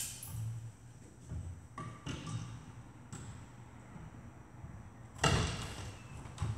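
Scattered knocks and thuds from demolition work on wooden loft framing, a few light knocks followed by one heavy bang about five seconds in and another near the end.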